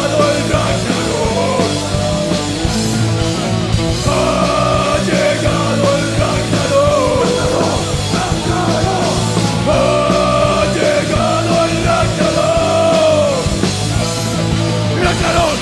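Heavy metal band playing live: drums and distorted guitars, with a bending melodic line that comes and goes over the top in three phrases.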